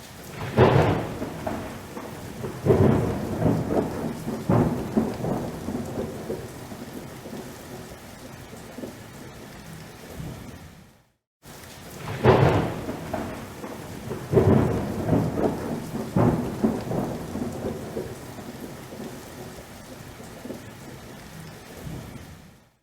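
Steady rain with rolling thunder: three loud cracks that rumble away within a few seconds, then after a brief cut to silence about halfway the same pattern of rain and three thunder crashes comes again.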